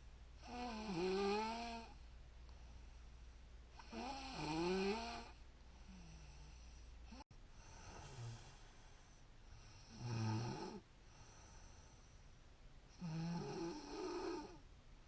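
A woman snoring in her sleep: about five snores roughly three seconds apart, each a pitched tone that wavers up and down in pitch.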